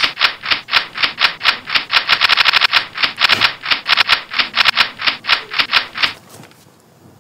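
Fast rhythmic scraping strokes, about five a second, crowding to about twice that rate a little after two seconds in, then stopping suddenly about six seconds in.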